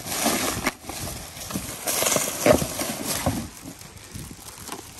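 Plastic packaging rustling and crinkling in a cardboard box while a cord is pulled out by hand, with irregular knocks and scrapes, the loudest about halfway through.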